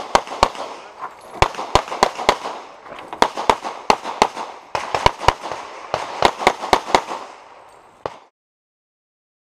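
Pistol gunfire during a USPSA stage run: about twenty sharp shots in quick strings of two to five, each ringing out with echo. The shooting cuts off abruptly near the end.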